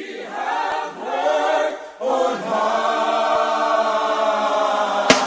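A choir singing long held notes as intro music, the chord swelling about two seconds in; the first drum hits come in right at the end.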